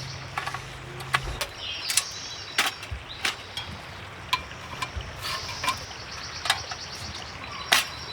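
Irregular sharp clicks and knocks, about a dozen, over a steady background hiss.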